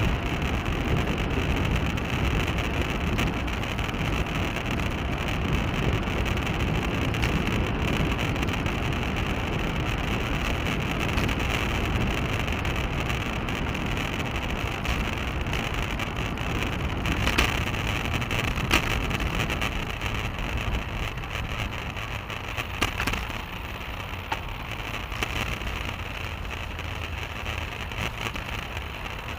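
Steady rushing noise from a moving bicycle picked up by its handlebar-mounted action camera: wind over the microphone with tyre and road rumble. A few sharp clicks and knocks come through, and the noise eases a little in the last few seconds.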